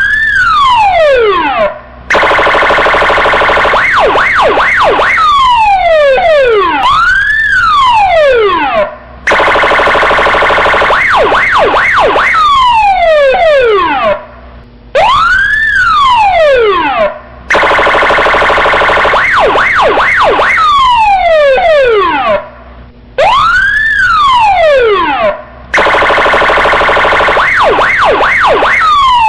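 Police siren cycling through its tones: a rising-and-falling wail, then a harsh steady horn tone with quick yelps over it, then falling sweeps. The sequence repeats about every eight seconds, with brief breaks between segments.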